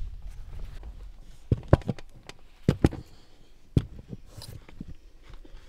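A handful of sharp knocks and clanks as someone moves about a roof-top tent and its aluminium telescoping ladder. They come in two quick clusters of two or three, about a second and a half in and again a second later, with a single knock near four seconds, over a low rumble of handling noise at the start.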